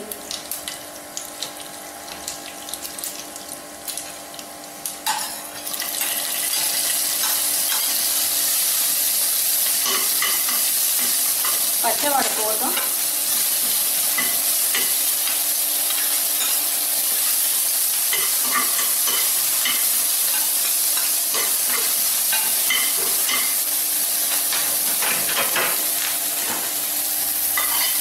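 Mustard and cumin seeds crackling in hot oil in a nonstick pan, then about six seconds in a louder steady sizzle as chopped green chillies fry, stirred and scraped with a spatula.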